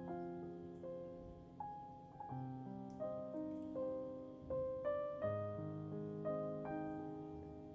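Soft background piano music: a slow melody over held chords, each note struck and left to fade.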